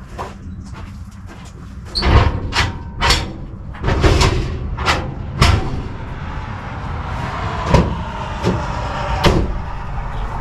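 A series of sharp metal clunks and bangs, about eight over several seconds, over a low steady rumble, as a camper's gooseneck coupler is worked against the pickup's hitch ball.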